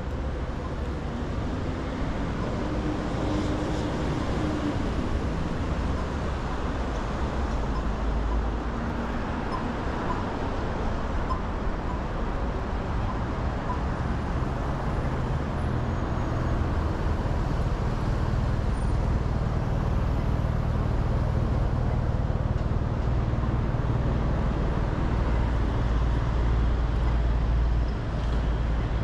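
Steady city road traffic: vehicles passing on a busy street, a continuous rumble of engines and tyres that grows heavier about halfway through.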